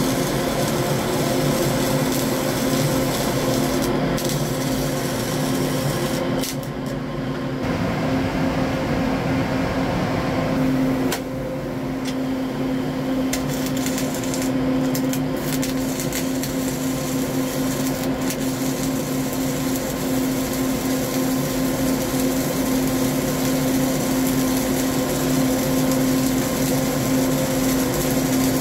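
Flux-cored arc welding with CO2 shielding gas on a vertical joint: the arc crackles and hisses steadily over a steady hum. The crackle thins out briefly twice, about a quarter of the way in and again a few seconds later.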